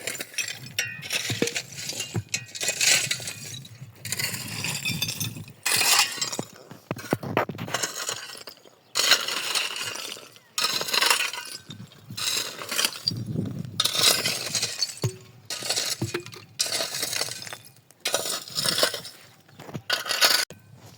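Repeated crashes of something breaking, with clinking and rattling, coming in irregular bursts of about a second each.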